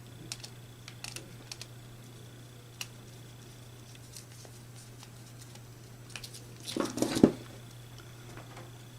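Small clicks and rustles of wire and relay terminals being handled during wiring, with a denser cluster of clicks about two-thirds of the way through, over a steady low hum.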